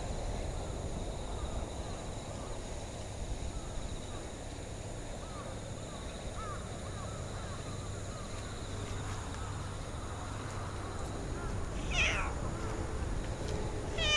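Outdoor ambience with a low wind rumble on the microphone and faint bird chirps in the middle, then two short, harsh animal calls near the end.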